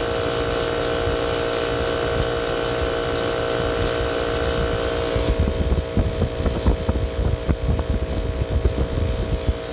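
Air-conditioning unit running with a steady hum made of several held tones and a fluttering hiss, the weird noise that the owner thinks almost sounds like a bearing. About halfway through the higher tones fade and an uneven low rumble comes in.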